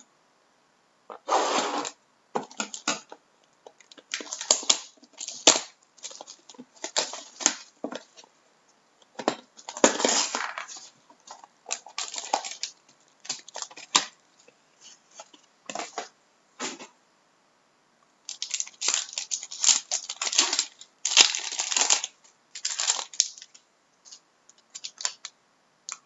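Irregular crinkling, tearing and rustling of trading-card packaging as a sealed box of hockey cards is opened and handled, in uneven bursts with short gaps between them.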